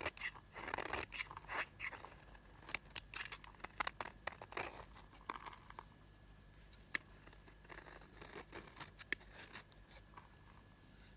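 Old, dried-out bar soap being cut with a blade: crisp crunching and scraping with sharp clicks as flakes and pieces break off, busy at first and thinning out until it stops near the end.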